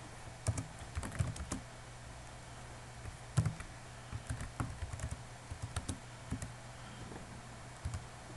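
Computer keyboard being typed on in irregular bursts of keystrokes, over a low steady hum.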